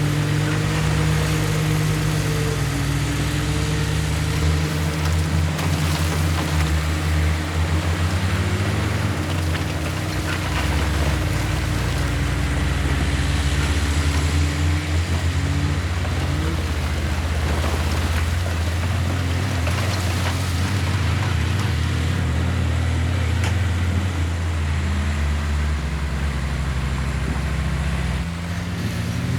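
Heavy diesel engine of earthmoving machinery running loud and steady, its pitch rising and falling several times as it works under changing load.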